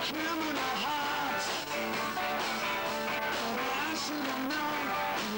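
Live rock band playing: guitar with singing over drums and cymbals.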